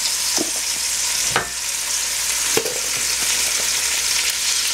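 Cubed chuck roast searing over high heat in olive oil and butter in an enamel pot: a steady, high sizzle with a few sharp clicks.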